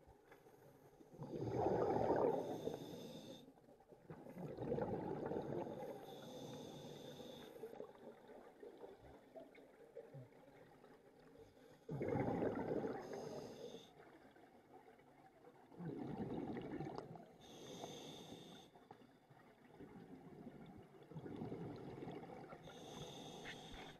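A scuba diver breathing through a regulator underwater: about five breaths a few seconds apart, each a hiss of air through the regulator and a gurgling rush of exhaled bubbles, with a longer gap between the second and third.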